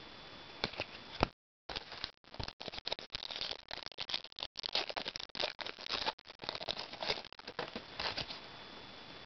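Football trading cards and their foil pack being handled at close range: a run of quick rustling, crinkling and light card clicks that starts about two seconds in and thins out near the end.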